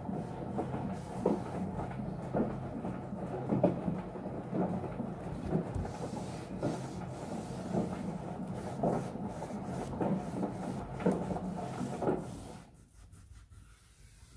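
A cloth rubbed hard back and forth over a white appliance panel, scrubbing off leftover label adhesive, with a stronger stroke about once a second. The rubbing stops near the end.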